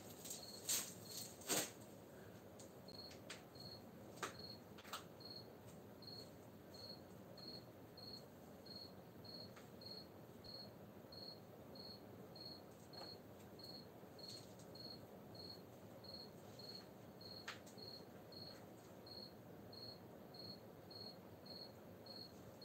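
A cricket chirping steadily, one short high-pitched chirp about every two-thirds of a second. A few faint soft clicks and rustles of hands working soil and small plastic pots sound now and then.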